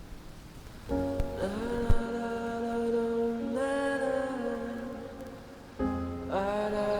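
Background music of slow, held notes. One phrase swells in about a second in, fades, and a new phrase comes in near six seconds.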